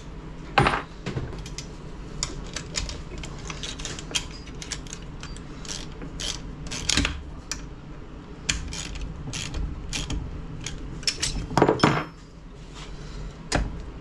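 A wrench tightening a bolt and lock nut on a transfer case shifter linkage: irregular metal clicks and clinks, with a few louder knocks about half a second in, around the middle and near the end.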